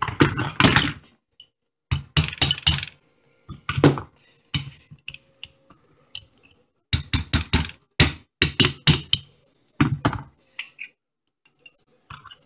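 Metal AR-15 rifle parts clinking and knocking as the lower receiver with its buffer tube is handled, moved and set down, in several quick clusters of sharp taps.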